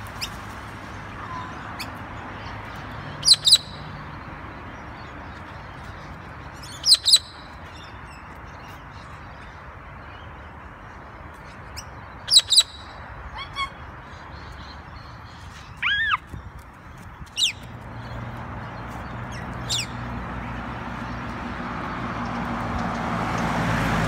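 Cockatoos calling from a tree: short, shrill screeches, mostly in quick pairs, several seconds apart, one of them falling in pitch. Near the end a passing vehicle gets louder.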